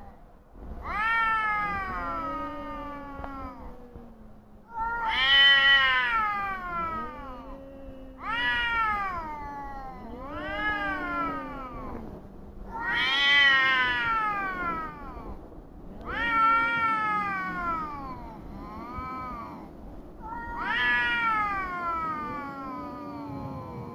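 Two stray cats caterwauling in a standoff, trading long, drawn-out yowls that fall in pitch, over a lower, steady moaning. These are the threat calls of cats squaring up before a fight.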